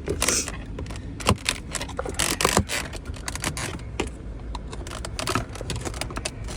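Plastic dashboard trim around a 2017 Kia Sedona's AC control panel being pried and worked loose from its snap clips: irregular clicks and brief plastic scraping.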